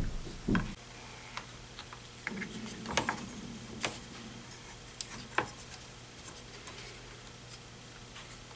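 Light clicks, taps and rubbing of hands handling wires and sliding a heat-shrink sleeve over an in-line fuse. There is a soft bump about half a second in.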